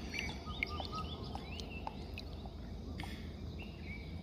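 Birds chirping, with many short calls that rise and fall, over a steady low rumble; a few light ticks stand out among them.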